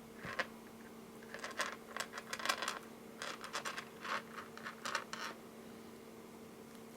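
Nylon cord being handled and threaded through a small metal crimp bead: a run of short, light scratching and rustling sounds that stops about five seconds in.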